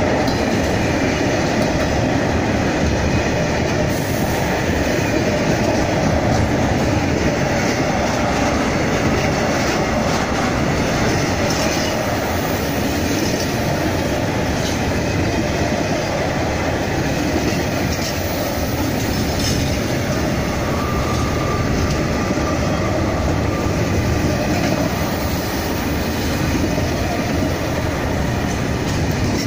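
Freight train wagons rolling past, a steady rumble of steel wheels on rail with some clatter. A faint, thin wheel squeal comes in about twenty seconds in.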